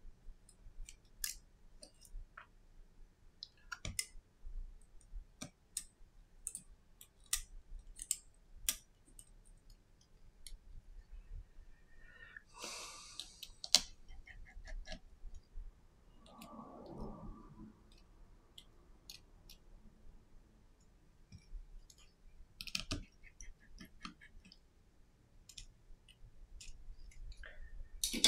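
Scattered small clicks and taps of a repair tool and tiny metal parts, such as screws and the connector bracket, being handled inside an opened iPhone SE (1st generation). A brief scraping rustle comes about halfway through and a duller handling rustle shortly after.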